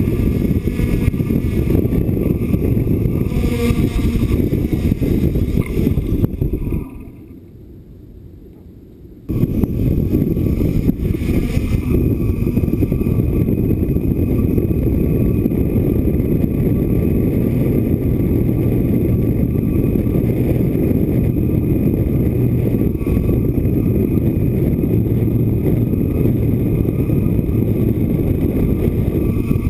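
DJI F550 hexacopter's six motors and propellers running, heard through a camera mounted on its frame: a steady whine over heavy, rough wind noise buffeting the microphone. About seven seconds in, the sound drops low for two or three seconds, then returns.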